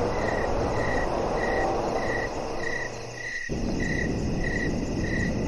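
Crickets chirping in an even rhythm, about two chirps a second, over a steady background hiss that briefly drops out about three and a half seconds in.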